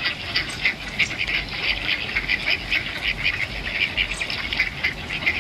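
A flock of ducks quacking, a dense run of short calls several times a second without pause.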